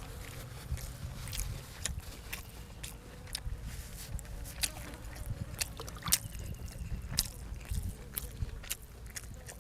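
A person chewing food close to the microphone: wet, squishy mouth sounds with many scattered sharp clicks.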